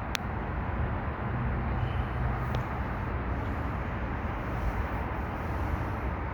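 Steady low rumble and hiss of outdoor background noise, with one sharp click just after the start.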